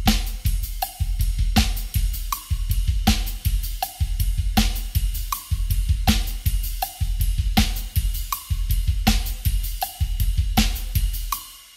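Drum kit played with double bass drum pedals: the feet run a continuous LRRRRLRL eight-note pattern of kick strokes while the hands keep a steady snare backbeat with cymbals. The playing stops shortly before the end and the cymbals ring out.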